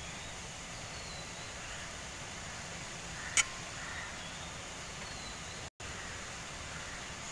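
Steady hiss of a pot of water with grated coconut and sugar at a rolling boil, with one sharp click about three and a half seconds in and a few faint, short, high chirps.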